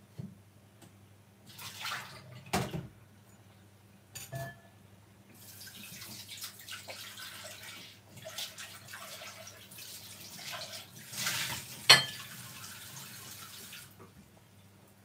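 Kitchen tap running into a sink for about eight seconds, starting about five seconds in, with a few knocks and clatters before it and a sharp knock near the end.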